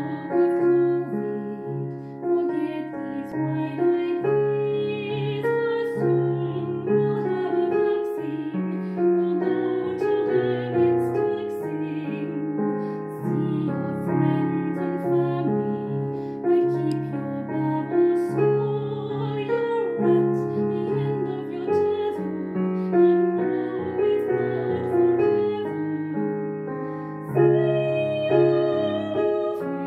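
Digital piano playing a slow ballad: held low notes and chords under a melody, without a break.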